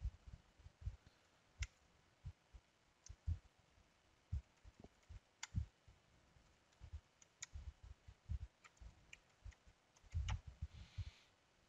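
Computer keyboard being typed on: faint, irregular key taps, with a quicker run of taps about ten seconds in.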